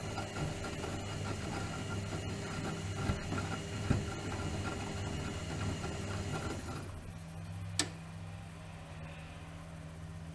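Bauknecht WAK 5750 G washing machine running, its brushed drum motor, fitted with new carbon brushes, turning with a busy, slightly rattling hum. About seven seconds in, the motor sound drops away, a single sharp click follows, and a lower, steady hum carries on.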